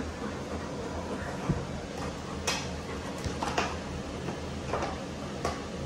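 Steady low room hum with a handful of short, light clicks and knocks scattered through it.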